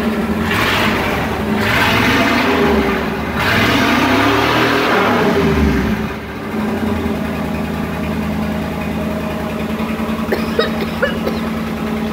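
1979 Chevrolet C10 pickup's engine revved several times in quick bursts, then settling into a steady idle through its exhaust. Afterwards the owner judges that it needs more muffler and a tune-up.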